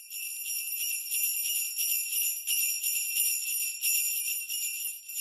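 Jingle bells shaken continuously, a bright high jingling pulsing with each shake, cutting off suddenly at the end.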